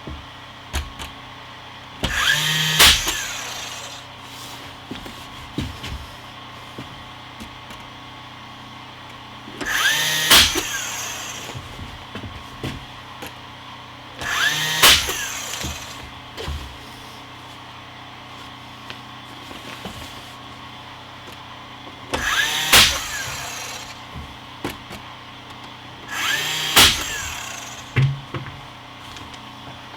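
Cordless power tool fastening closet wall boards: five short runs, each about a second long, with a brief motor whine that bends in pitch and a sharp crack.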